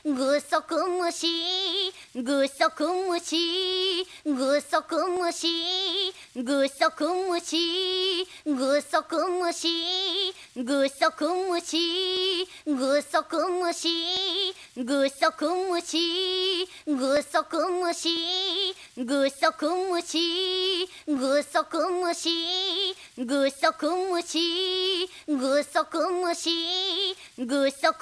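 A girl's singing voice chanting "gusoku mushi, gusoku mushi" (giant isopod) to the same short sing-song tune over and over, one phrase about every two seconds, as a repeating loop.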